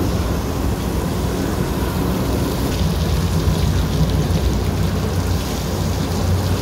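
Rinse water gushing steadily over a soaked rug and pouring off its edge onto the wash floor.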